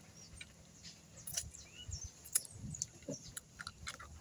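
Faint, scattered clicks and cracks of crab shell being broken apart and chewed. A few brief faint chirps, like a small bird's, come in the background.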